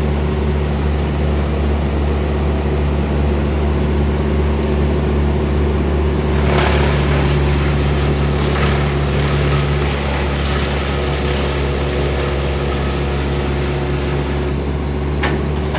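An engine running steadily at a constant speed, with a rougher, noisier stretch from about six to ten seconds in and a sharp click near the end.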